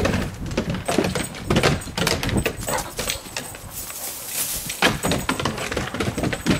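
Paws and claws of two Great Danes clattering and thudding on wooden deck boards as they run and wrestle. The knocks are quick and irregular.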